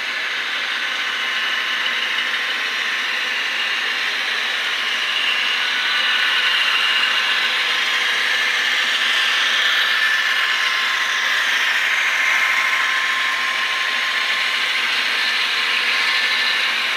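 Model train running past on the layout: a steady whir of the locomotives' small electric motors and gearing with wheels rolling on the track, getting louder about six seconds in as the locomotives go by.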